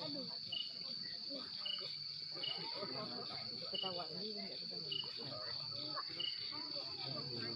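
Night insects trilling: a continuous high, steady drone with a shorter chirp repeating roughly once a second, over faint voices of people talking in the distance.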